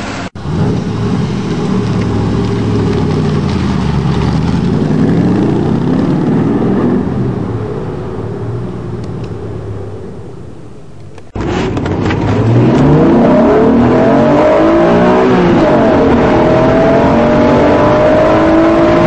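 Car engine revving and accelerating, its pitch rising and dropping as it changes gear, then fading away. About eleven seconds in it cuts abruptly to another loud car engine at high revs, its pitch climbing.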